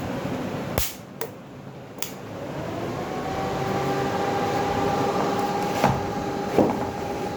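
Three switch clicks, then a steady electrical whine from the inverter electric fishing machine fades in and holds as it powers up on test, with two more clicks near the end.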